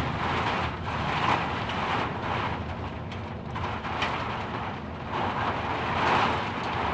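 Storm wind gusting hard, a rushing noise that swells and eases every second or two and buffets the microphone.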